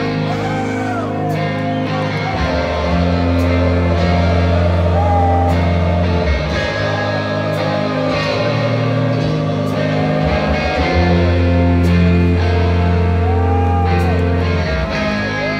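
Live rock band playing a slow electric-guitar passage over long held bass notes that change every couple of seconds, loud and picked up from within the audience.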